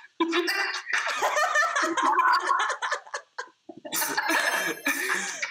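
Two people laughing and giggling, in two spells with a brief pause about three and a half seconds in.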